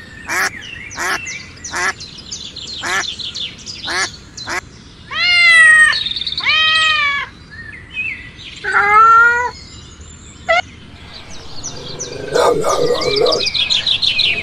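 A sequence of animal calls: a quick run of short, sharp calls, then three longer drawn-out calls a few seconds apart, then a busy twittering of bird chirps near the end.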